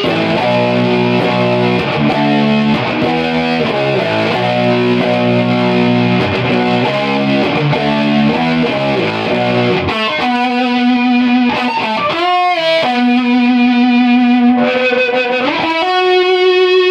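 Electric guitar played through a prototype compressor/fuzz/sustainer circuit: about ten seconds of low, rhythmic riffing, then single notes held long, with a wavering bend partway through and a long sustained note near the end.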